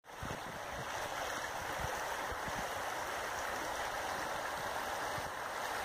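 A shallow river running over a stony riffle: a steady rush of water.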